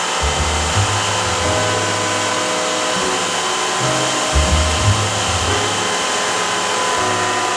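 High-speed router spindle of a CNC milling attachment running steadily with a whine while it cuts walnut on a lathe. Low rumbles come and go as the cut changes.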